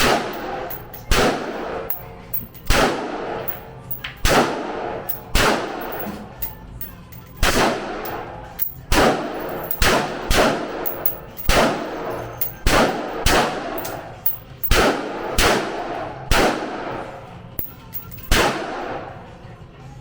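Gunshots on a shooting range: about sixteen single shots fired at an irregular pace of roughly one a second, each loud crack followed by a ringing echo.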